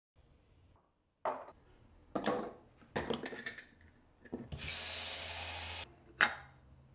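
Handling a stovetop moka pot and a glass jug: several sharp knocks and clinks of metal and glass, a steady rush lasting about a second and a half past the middle, then one more clack as the metal filter basket is set in place.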